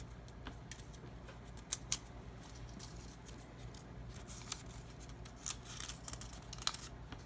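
Scissors cutting paper, a series of short irregular snips.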